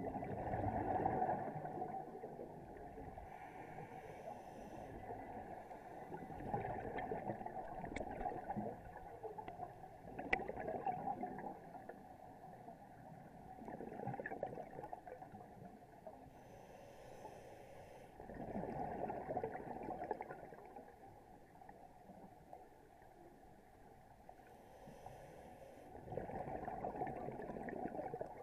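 Scuba diver breathing through a regulator underwater: a short hiss on the inhale, then a longer gurgling rush of exhaled bubbles, repeating every several seconds.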